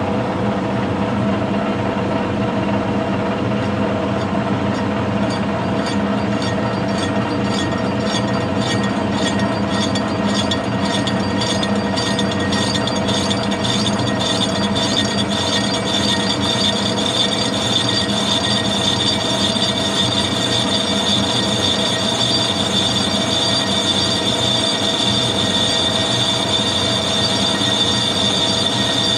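Metal lathe running, its tool taking a light finishing cut on the rim of a cast flywheel held in the chuck. A steady hum with a regular pulsing through the middle stretch, and a high ringing tone that grows stronger in the second half.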